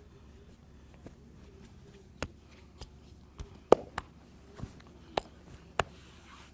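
Massage hand strikes: a run of about eight sharp slaps at uneven intervals, the loudest a little past the middle.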